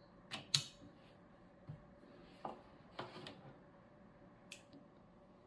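A few short plastic clicks and knocks as a network cable's plug is pushed into the laptop's side Ethernet port and the laptop is handled. The sharpest click comes about half a second in, followed by fainter taps spread through the rest.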